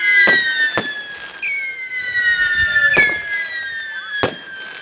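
Vuurwerk siren rockets whistling in flight: several overlapping whistles, each starting high and sliding slowly lower, with fresh ones starting about a second and a half in and again about three seconds in. Four sharp bangs and bits of crackling from the rockets bursting break across the whistling.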